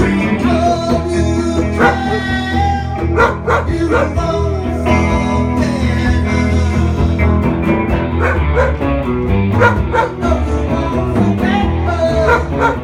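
A dog howling along with a live band playing electric guitars and drums, in drawn-out notes that bend up and down in pitch over the music.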